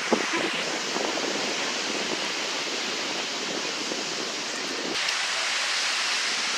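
Ocean surf and wind on the beach, a steady rushing wash that changes abruptly about five seconds in.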